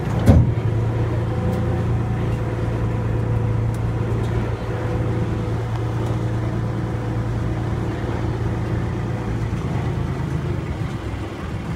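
Ride train running steadily, a continuous low drone and rumble, with a short loud knock just after the start.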